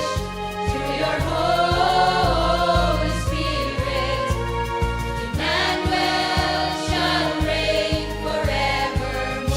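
Recorded choir singing a hymn over a musical backing with a steady beat of about three strokes a second.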